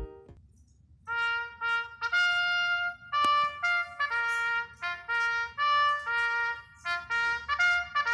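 Solo trumpet playing a quick tune of short, separate notes at several pitches, starting about a second in after a moment of near silence.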